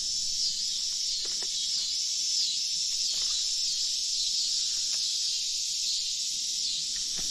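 A steady, high-pitched outdoor insect chorus buzzing without a break, with a few faint clicks scattered through it.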